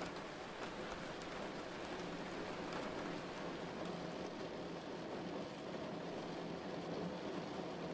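Steady rain falling: an even hiss with a few faint drop ticks.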